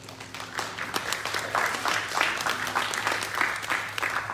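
Audience applauding: a dense patter of hand claps that swells about half a second in and tapers off near the end.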